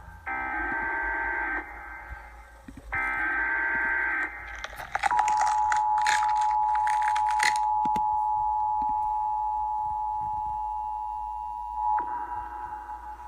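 Distorted, radio-like electronic horn sound: two short buzzing blasts, then crackling static and a long steady tone, with another buzzing blast near the end.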